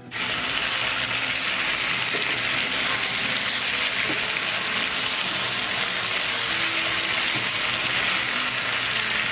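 Masala-coated chicken pieces frying in a hot non-stick kadai, sizzling steadily while being stirred with a wooden spatula: the bhuna (kosha) stage, sautéing the chicken in the spice paste.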